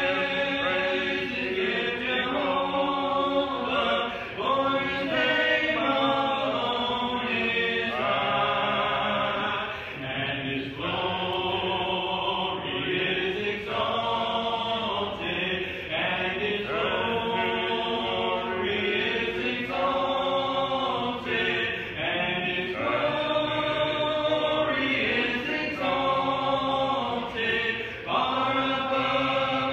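A group of voices singing a hymn together in church, in sustained phrases of a few seconds with short breaths between them.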